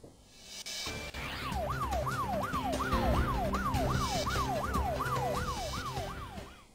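Breaking-news music sting with a siren effect: a wail that sweeps down in pitch over and over, about two sweeps a second, over a low pounding beat. It starts about a second in and fades out near the end.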